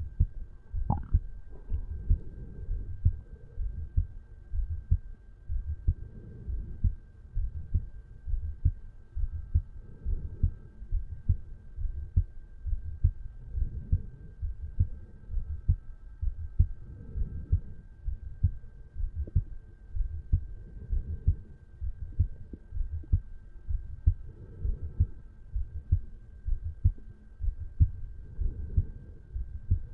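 A resting adult human heartbeat picked up over the mitral valve area of the chest: a steady, even run of low lub-dub thumps. A faint steady high hum lies under it.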